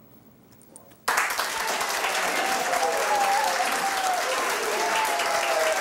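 Applause starts suddenly about a second in and carries on steadily, with a single wavering tone running over it.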